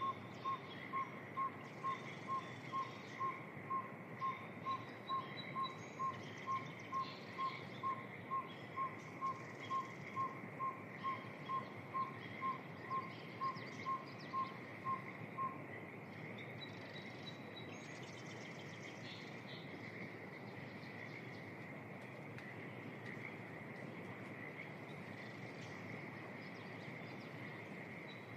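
Northern saw-whet owl giving its long series of evenly spaced single-pitch toots, about two a second, which stops about halfway through. Under it runs a steady, higher-pitched evening chorus.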